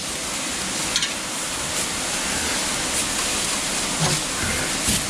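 A steady, loud hiss that cuts off suddenly at the end.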